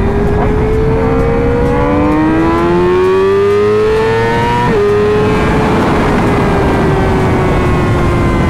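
Yamaha R6 inline-four sportbike engine accelerating through the gears: the engine note climbs, drops sharply at two upshifts about two and five seconds in, then eases off with the pitch slowly falling, over a steady rush of wind.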